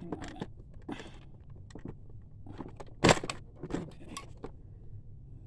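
Plastic doll-sized toy SUV being handled: scattered clicks and rattles of its plastic parts, with a sharp knock about three seconds in.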